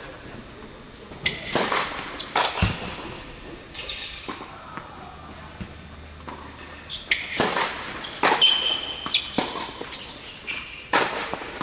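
Tennis balls struck by racquets and bouncing on a hard indoor court: a series of sharp hits and bounces, irregularly spaced, each echoing in the large hall.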